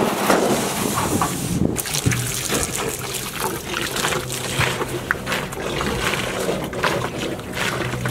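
Water from a hose trickling and splashing into a galvanized metal stock tank, with a steady low hum underneath from about two seconds in. A few louder knocks come near the start.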